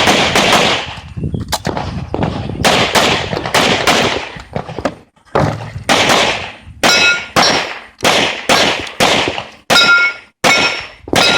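A string of rapid handgun shots, well over a dozen, fired in quick pairs and runs. In the second half several shots are followed by a short metallic ring from steel targets being hit.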